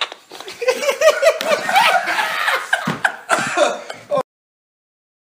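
Hearty laughter in quick repeated bursts, cutting off abruptly about four seconds in.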